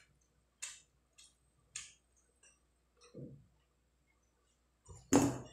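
Soft, short wet sounds of rice being worked by hand on a plate and dal poured from a small steel bowl. About five seconds in, a single loud clunk with a short ring, as the steel bowl is put down.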